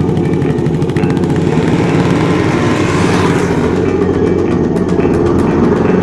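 Engine of an off-road vehicle running steadily under way, with a slight rise in pitch and brightness a little past halfway.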